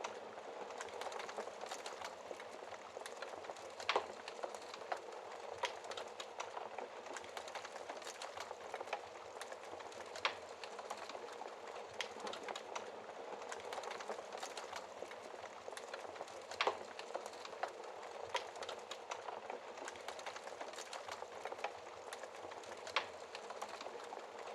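Wood fire crackling in a fireplace: a steady hiss with frequent small pops, and a louder snap about every six seconds.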